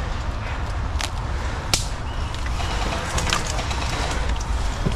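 Steady low outdoor rumble with two sharp clicks or snaps, about a second in and just under two seconds in, and a few fainter ticks after.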